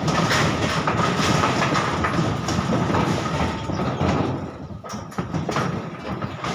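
Donkeys' hooves clattering and thumping on the slatted wooden unloading ramp of a livestock truck, a dense run of knocks that eases briefly about four and a half seconds in.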